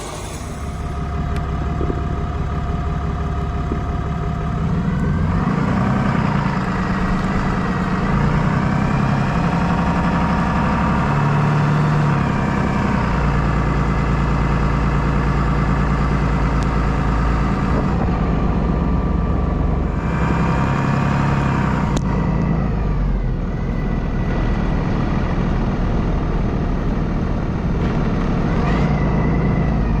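Truck engine running while driving, its pitch rising and falling several times as it speeds up and slows down, over a steady low rumble.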